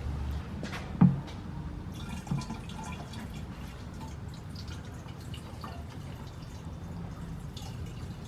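Fuel dripping from the disconnected fuel line and filter fitting: a few separate drips, the sharpest about a second in and another just after two seconds.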